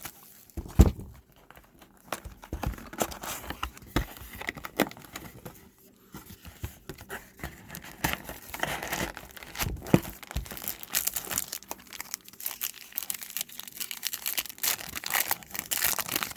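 Trading card packaging being torn open and handled, a run of crinkling and tearing wrapper sounds with a couple of sharper knocks. The rustling is busiest in the second half.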